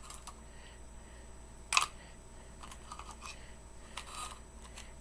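Small animal figurines being handled, giving a few short sharp clicks and taps as they are picked up and set down; the loudest click comes a little under two seconds in, with softer ones around three and four seconds in.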